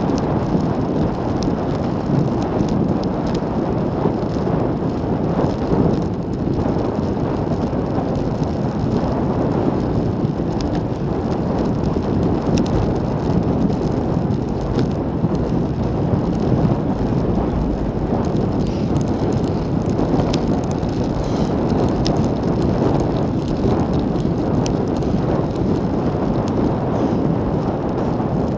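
Steady wind rush on the handlebar camera's microphone, mixed with tyre noise on asphalt, from a road bicycle riding at around 40–50 km/h. Faint light ticks come and go over the top.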